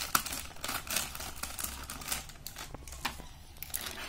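Small scissors snipping through a crinkly plastic snack packet, with a few sharp snips among the packet's crackling as it is cut and handled.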